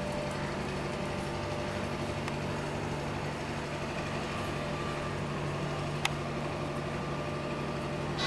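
A steady mechanical hum with a low tone underneath, and one sharp click about six seconds in.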